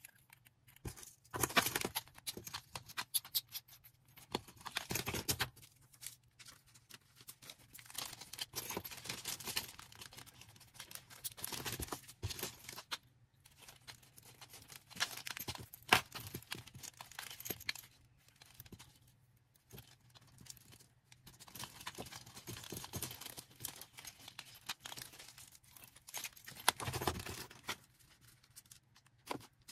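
Hands packing an order: plastic packaging rustling, crinkling and tearing in irregular bursts, with sharp clicks of items being handled, over a faint steady low hum.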